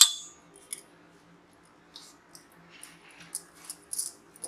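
Glass bangles on the wrist clinking lightly while hands press and flatten a ball of stiff dough on a wooden rolling board. A sharp clink right at the start, then short scattered jingles from about two seconds in, over soft pressing sounds.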